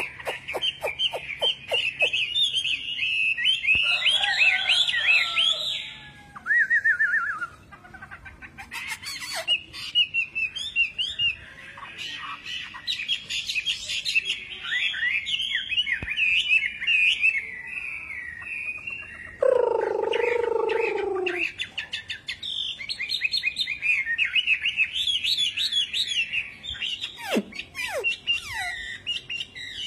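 Chinese hwamei (melodious laughingthrush) singing a long, varied song of fast whistled phrases, with a lower-pitched phrase about two-thirds of the way through.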